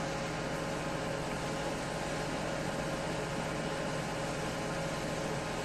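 Steady mechanical drone with a constant hiss: the pump of a street-washing hose running while a high-pressure water jet sprays the road.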